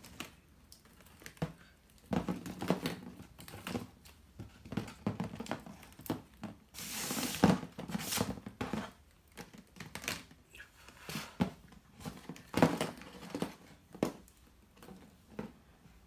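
Hollow plastic Easter eggs clicking and clattering against each other and a plastic basket as they are taken out by hand and set down on a table: scattered light knocks, with a louder rustling clatter about seven seconds in.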